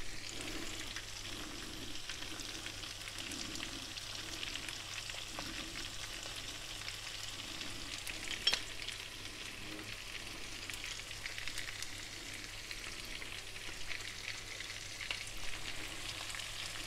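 Large black tiger prawns frying in garlic-and-herb oil in a pan: a steady sizzle with light crackles and one louder pop about halfway through.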